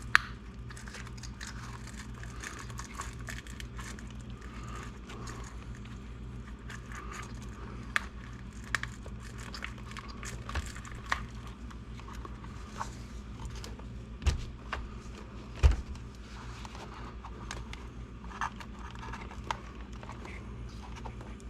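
Small plastic and metal parts of an RC car chassis being handled and fitted by hand: scattered light clicks and taps, with a few sharper knocks around the middle, over a steady low hum.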